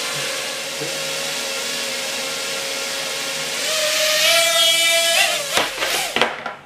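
Small quadcopter drone's motors and propellers whirring steadily, then rising in pitch and getting louder about three and a half seconds in as it throttles up to lift off. Near the end come a few sharp knocks as it tumbles against the table, then the motors cut off suddenly: a failed lift-off.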